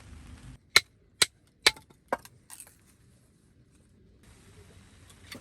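Four sharp knocks about two a second, followed by a few fainter clicks.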